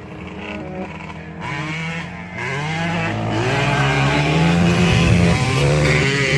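Dirt bike engine revving up and down repeatedly, growing louder.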